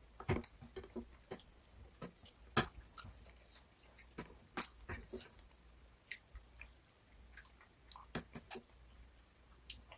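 A person chewing and biting crunchy food close to the microphone: irregular crunches and mouth clicks, the loudest about two and a half seconds in.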